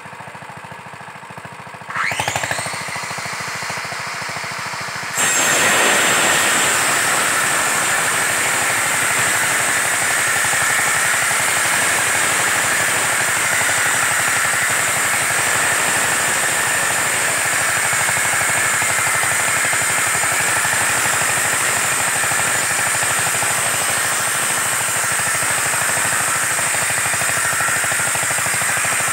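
Chainsaw revs up with a rising whine about two seconds in, then from about five seconds runs steadily at high revs, cutting into a felled palmyra palm trunk.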